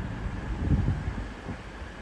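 Class 220 Voyager diesel multiple unit pulling away from the platform: a low underfloor diesel engine rumble that eases slightly toward the end.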